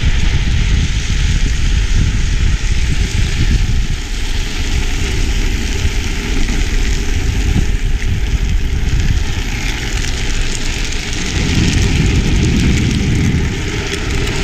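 Drift trikes rolling fast downhill, their hard plastic-sleeved rear wheels scraping and sliding on asphalt, under heavy wind rumble on the camera's microphone. The rumble swells for a few seconds near the end.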